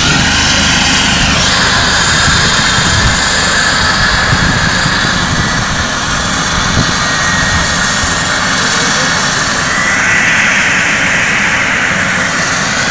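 Rescue helicopter's turbines running loudly with a steady high whine over a rushing noise; one whine rises in pitch about ten seconds in.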